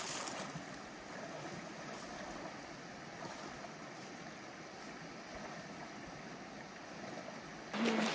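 Gila River water flowing at a crossing: a steady rushing noise with no distinct events. Near the end a louder, different noise starts abruptly.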